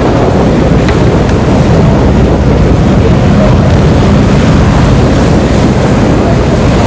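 Scarab 38 KV offshore powerboat running at speed: a loud, steady engine note mixed with water rush and wind on the microphone.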